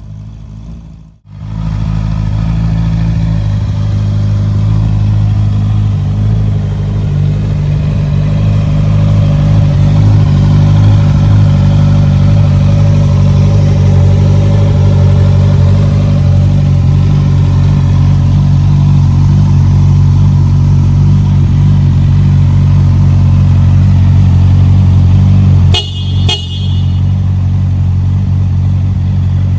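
Honda CBR650R's inline-four engine running steadily through an Akrapovic exhaust, a loud, even note. The sound drops out briefly about a second in, and there is another short break near the end.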